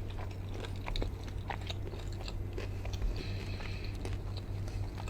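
Close-miked biting and chewing of chicken wings, with short crunches and wet mouth clicks scattered through, over a steady low hum.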